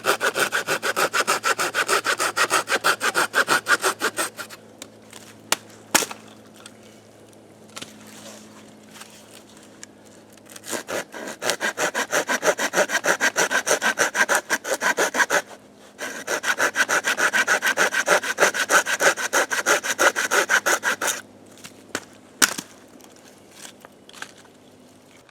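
Wood being cut with a hand saw in quick back-and-forth strokes, in three long bouts with pauses between. Two sharp single knocks come in the pauses, about six seconds in and near the end.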